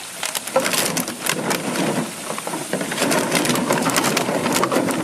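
Bottles in a dry pool rustling, crackling and clattering irregularly as puppies climb and play among them.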